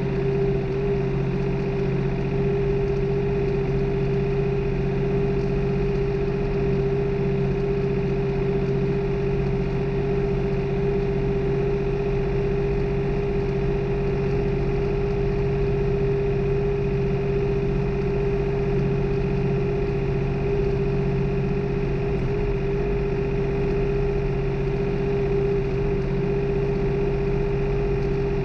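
New Holland tractor's diesel engine running steadily during tillage work, heard from the driver's seat: an even, unchanging drone with a strong steady tone.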